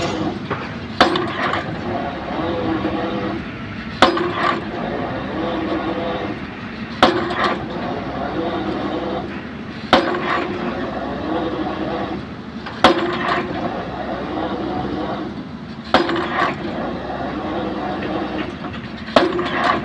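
Excavator drop hammer striking a pile, seven sharp blows about three seconds apart, over the excavator's steady engine running.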